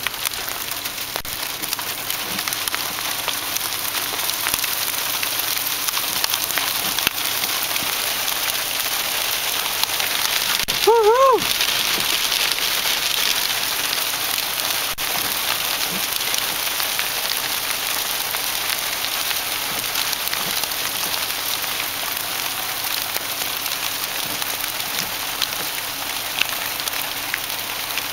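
Small hail pelting the pavement and car in a steady, dense patter of many tiny ticks. A brief pitched sound that rises and falls cuts in about eleven seconds in.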